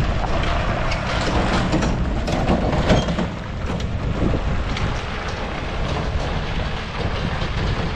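A livestock trailer behind a Jeep, rattling and clanking with many irregular knocks over a steady low rumble.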